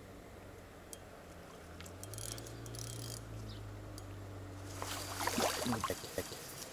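Fishing reel being wound with a steady low whir while a hooked fish is played. About five seconds in, water splashes and reeds rustle as the fish is drawn in to the landing net at the bank.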